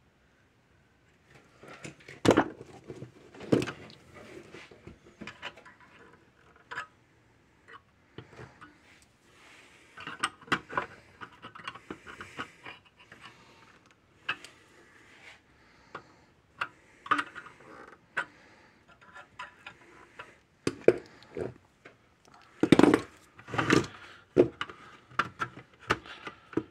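Irregular clicks, knocks and rattles of fence-energizer parts being handled and forced into place, with a few sharp knocks standing out: a part that won't seat easily.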